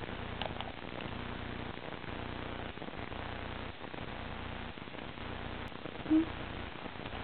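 Steady low hum and hiss, with one short pitched sound about six seconds in.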